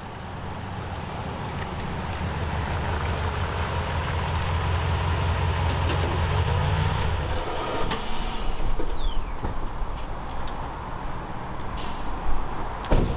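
Toyota Tundra pickup's engine running low and steady as the truck pulls up, then shut off about seven seconds in. A few sharp clicks and knocks follow near the end.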